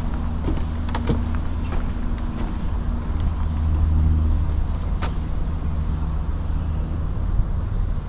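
A steady low motor hum, with a few light knocks of footsteps on wooden boardwalk planks.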